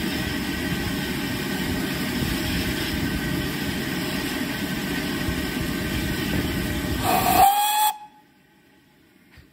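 GWR 2-8-0 steam locomotive 3802 hissing loudly and steadily with escaping steam, then a short blast on its whistle about seven seconds in that cuts off abruptly.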